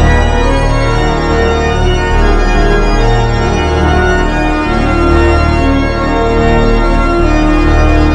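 Organ playing sustained chords over a held deep bass.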